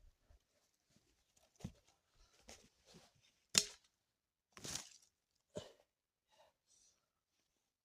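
Faint handling noises: a string of short rustles and sharp snaps about a second apart, the loudest about three and a half seconds in, dying away near the end.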